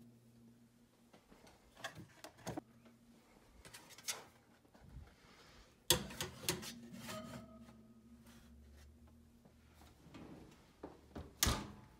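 Metal loaf pans being set down and slid across wire oven racks: a few scattered clinks and knocks, the loudest about six seconds in, over a faint low hum.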